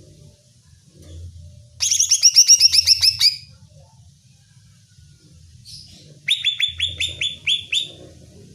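Greater green leafbird (cucak ijo) calling: two bursts of rapid, evenly repeated downward-sweeping notes, about eight a second, each burst lasting about a second and a half.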